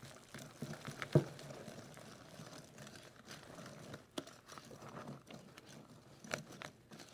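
Wire whisk stirring thick chocolate batter with pecans in a glass bowl: a faint, irregular wet stirring with a few sharp clicks as the whisk strikes the glass, the loudest about a second in.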